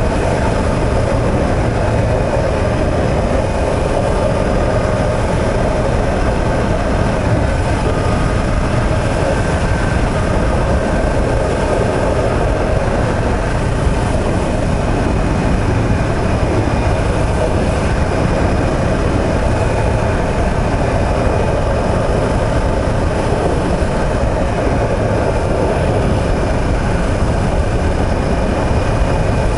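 Yamaha YZF-R1M's crossplane inline-four engine running steadily while the motorcycle cruises, heard on board together with steady wind and road noise.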